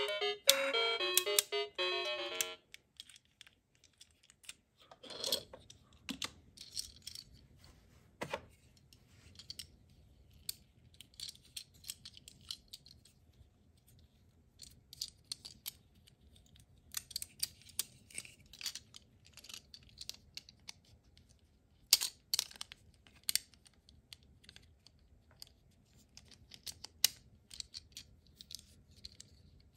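Plastic parts of a transforming ambulance robot toy clicking and clacking as they are folded and snapped into place, in scattered taps. A short electronic tune stops about two and a half seconds in.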